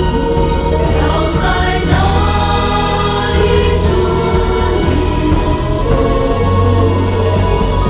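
Music with a choir singing long held notes over a steady low bass.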